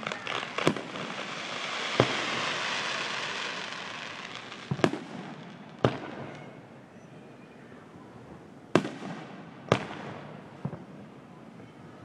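Aerial firework shells bursting: about half a dozen sharp bangs at uneven intervals, with a crackling hiss filling the first few seconds and fading out.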